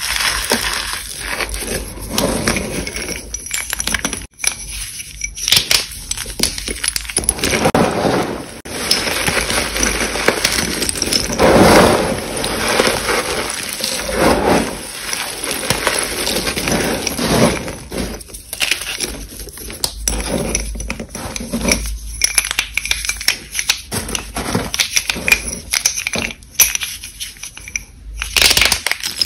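Hands crushing and crumbling chalk, pressed blocks of reformed gym chalk mixed with school chalk sticks. It is a continuous run of crunching and crackling, with many sharp clicks and louder crunches every few seconds.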